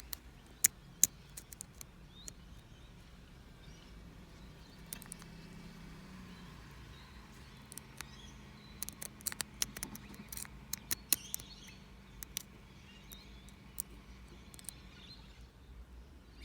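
Sharp metallic clicks and ticks of a lock pick and tension wrench working the pins in the core of a Master Lock 7040 Pro Series padlock. They come in irregular clusters, with the loudest about a second in and a busy run between about nine and twelve seconds.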